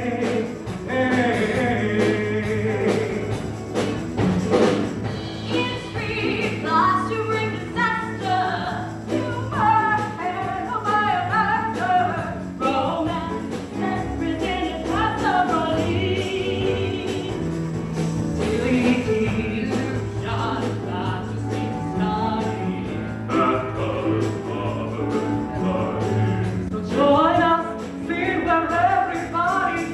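Live stage musical number: a band plays while voices sing over it, with wavering sung lines heard throughout.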